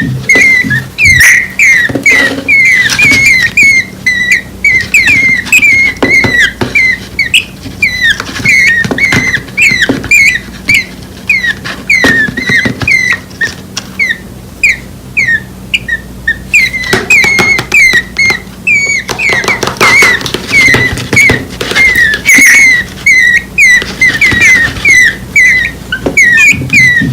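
Two nestling birds giving loud, rapid begging chirps, several a second, each with a quick drop in pitch. These are hungry calls for the parent. The calls thin out for a few seconds in the middle.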